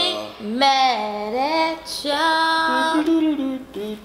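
A woman singing a short phrase in a few long held notes that slide between pitches, with short breaks between them.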